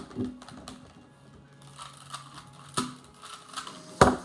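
Plastic Rubik's cube being twisted, giving a few sharp clacks, the loudest near the end. A low steady hum comes in partway through.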